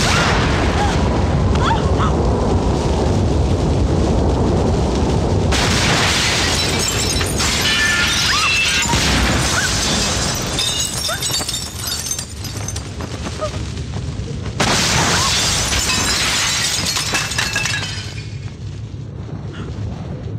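Film sound effects of a loud rushing wind with booms and crashes, mixed with dramatic music. The sound grows harsher twice along the way.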